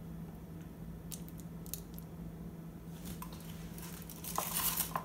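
Paper cups and wooden stir sticks handled on a countertop while acrylic paint is poured between cups: a few soft clicks, then a louder rustling scrape with small knocks near the end, over a steady low hum.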